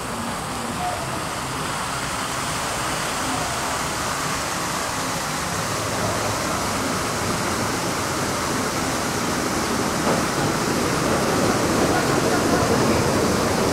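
Steady city traffic noise with faint voices in the background, growing louder over the last few seconds.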